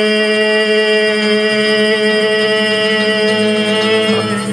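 The final note of a live folk song, a single long note held steady at one pitch, cutting off near the end.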